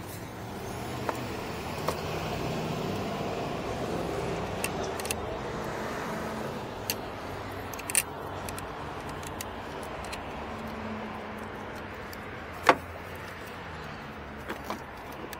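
Scattered metal clicks and clinks from hands and tools fitting the battery's cable terminals and hold-down hardware. One sharper click comes about three quarters of the way through, all over a steady low hum.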